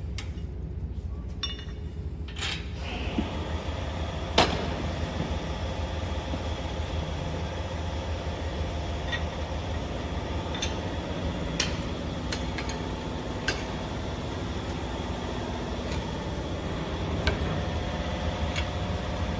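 Metal-on-metal clinks and knocks of hand tools on the parts of a slitting machine's unwinder being taken apart, several scattered strikes with a sharp knock about four seconds in the loudest. Under them runs a steady low hum of workshop machinery, joined by a louder running noise about three seconds in.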